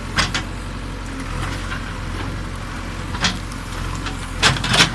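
Backhoe loader's diesel engine running steadily while its bucket digs out a bush, with short sharp knocks just after the start, about three seconds in, and twice close together near the end.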